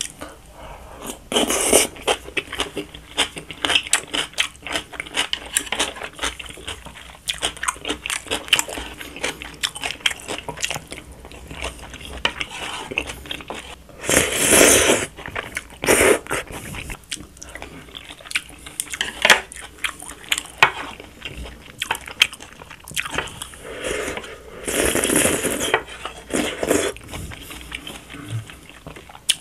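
Close-miked eating sounds: chewing and crunching of yellow pickled radish (danmuji) with spicy stir-fried jjamppong noodles and rice, thick with wet mouth clicks. There are two louder, longer slurps, about halfway through and again a few seconds before the end, with a spoon scraping the plate.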